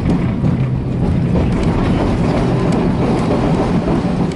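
W8-class tram running along the track, heard from on board: a steady low hum and rumble of motors and wheels on rails, with a few faint clicks.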